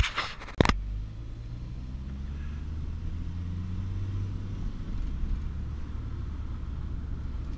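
Car engine and road noise heard from inside the cabin while driving, the engine note rising gently as the car picks up speed and then holding steady. Two loud knocks in the first second.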